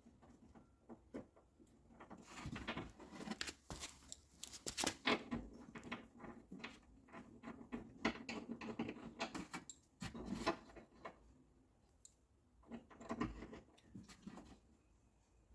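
Irregular small clicks and rattles of plastic and metal parts being handled as the bolt is fitted through a plastic window-glass stabiliser finger, its guide and a metal plate on a car's rear door glass. It comes in two bouts with a pause between.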